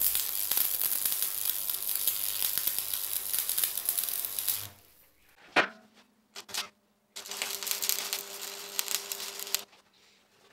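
Electric arc welding on steel: the arc sizzles and crackles steadily, then stops almost five seconds in. A sharp metallic knock follows about half a second later, then a few light knocks, and a second burst of welding sizzle lasts about two and a half seconds.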